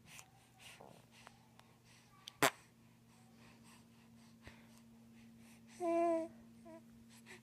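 A baby's short pitched vocal sound, about half a second long, near six seconds in, after a sharp knock about two and a half seconds in, over a steady low hum.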